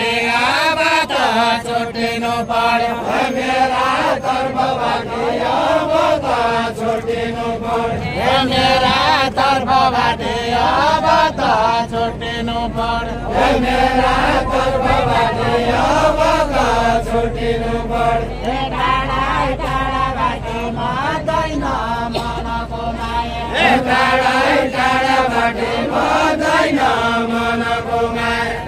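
Voices singing a Deuda folk song of far-western Nepal, chant-like, in long drawn-out phrases.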